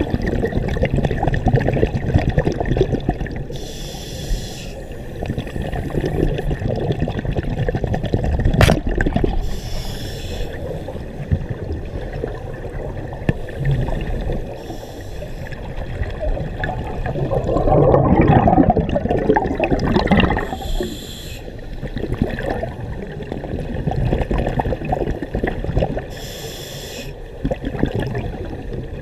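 Scuba regulator breathing underwater: exhaled air bubbles rumbling and gurgling, with a short hiss of inhaled air through the regulator every several seconds. A louder surge of bubbles comes about two-thirds through, and there is one sharp click about nine seconds in.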